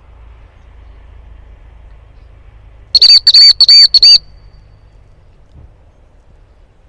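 Dog-training whistle blown in four short, loud blasts of the same high pitch in quick succession, about three seconds in.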